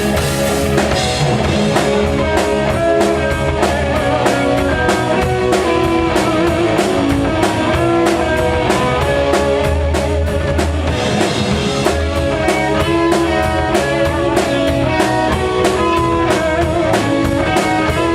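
Live rock band playing an instrumental passage: electric guitars carrying a melodic line over fast, steady drum-kit beats and bass, with no singing.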